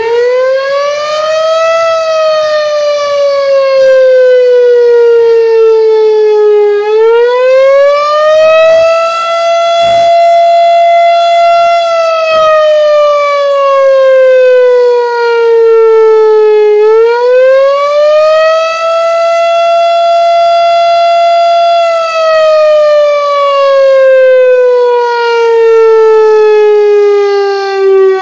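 Federal Signal STH-10A outdoor warning siren winding up in the first two seconds, then sounding a loud wail: its pitch falls slowly, climbs back and holds, twice over, and starts falling again near the end. A few brief knocks come around the middle.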